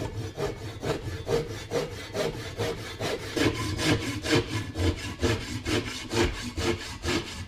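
Handsaw sawing through the last of the wood holding a turned decanter on a locked lathe, parting it off. Quick, even back-and-forth strokes throughout.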